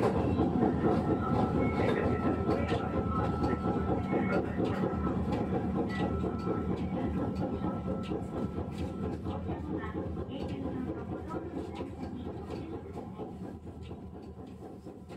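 Running sound inside a Sapporo streetcar M100-type tram (car M101): steady wheel-on-rail rumble with scattered clicks, fading steadily toward the end.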